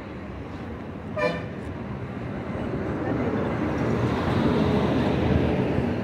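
A short vehicle horn toot about a second in, over a rushing traffic noise that grows steadily louder.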